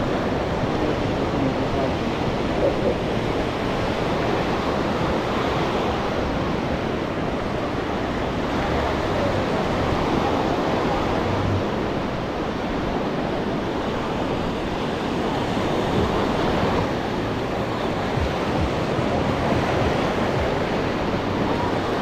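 Sea waves washing onto a sandy beach in a steady, unbroken rush, with some wind buffeting the microphone.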